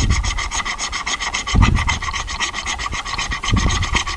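Hand hacksaw cutting a shallow guide line across a small brass plate clamped in a bench vise, a fast, even scraping of the blade's strokes.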